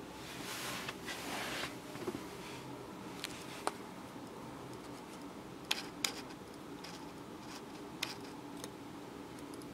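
Handheld camera and clothing handling noise in a small car cabin: a soft rustle in the first second and a half, then scattered small clicks and ticks over a faint steady hum.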